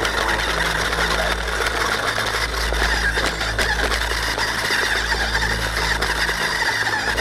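Small unmanned ground vehicle's drive running steadily, a continuous mechanical hum with a hiss over it.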